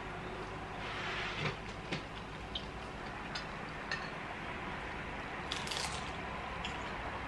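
People eating at a table: faint chewing with a few light, short clicks and clinks of plates and cutlery scattered through, over a steady low room hiss.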